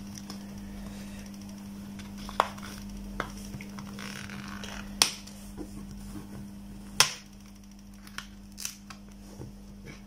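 A phone's back cover being prised off by hand: a few sharp snaps as its clips let go, the loudest about five and seven seconds in, with lighter ticks near the end, over a steady low hum.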